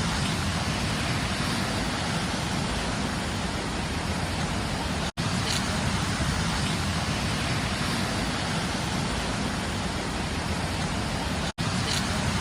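Steady rushing of floodwater in a swollen river, loud and even, broken by two split-second gaps about five and eleven and a half seconds in.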